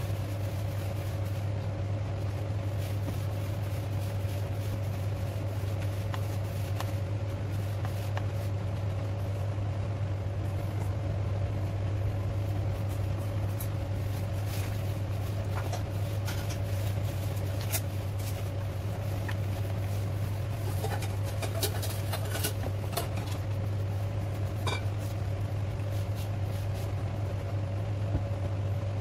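Steady low mechanical hum with a faint higher tone, like a fan or appliance motor, with light clicks and taps in the second half as hands work flour dough in a plastic bowl.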